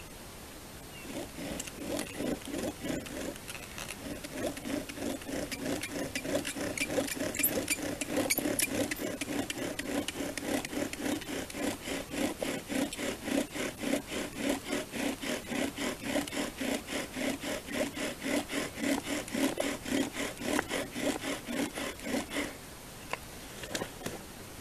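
Wooden bow drill spinning a spindle in a fireboard, the bow sawn back and forth about twice a second, each stroke a rhythmic rubbing of wood on wood over a steady low tone. The friction is working up smoke for a fire ember, and the drilling stops about two seconds before the end.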